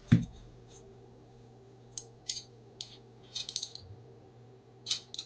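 Light clicks and taps of a small aluminium-alloy quick release plate being handled while its thickness is measured. There is one sharp click just after the start, then scattered lighter clicks, with a quick cluster of them a little past the middle.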